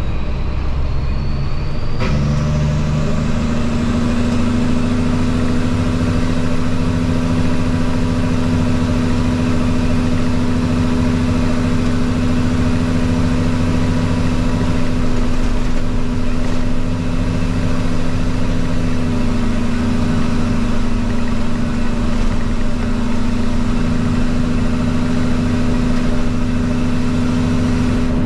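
Peterbilt truck's diesel engine pulling steadily, heard inside the cab while driving a dirt road, a steady drone with road noise. About two seconds in the engine note steps to a new steady pitch.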